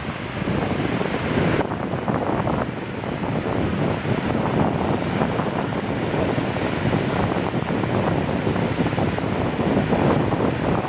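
Ocean surf breaking on a beach, a steady wash of waves, with wind buffeting the microphone.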